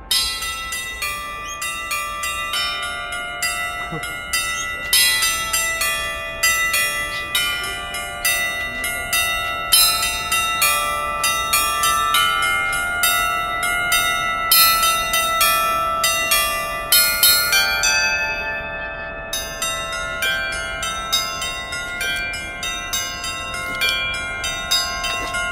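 Federation Bells, an installation of upturned bells mounted on poles, ringing a quick, dense run of struck notes at many different pitches, the tones overlapping and ringing on between strikes.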